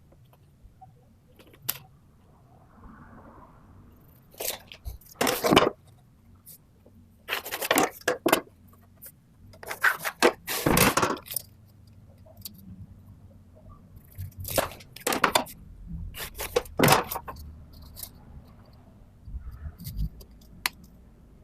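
Intermittent handling noises of hand work on the subwoofer box: short scrapes and metallic clinks, about a dozen bursts with pauses between them, the loudest near the middle.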